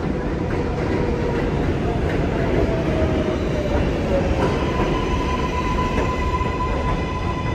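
A New York City 4 subway train pulling into an elevated station and braking: steel wheels rumbling on the elevated track under a motor whine that shifts in pitch. About halfway through, a steady high tone sets in and holds.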